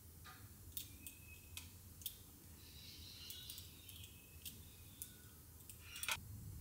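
Faint scraping of a peeler shaving the edges of a fresh, soft soap bar to bevel it, with scattered light clicks and taps.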